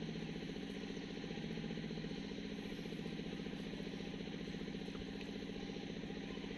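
A small engine running steadily at an even idle, with a fast regular chug.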